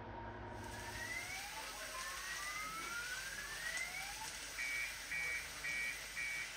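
Car alarm going off on a damaged car, first in rising wailing sweeps, then beeping four times at an even pace, over a steady hiss.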